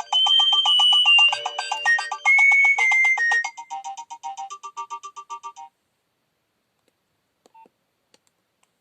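Nokia 6030 ringtone playing an electronic melody of several notes at once, with rapid repeated notes. It fades and stops about two-thirds of the way through, leaving near silence broken by a couple of faint clicks.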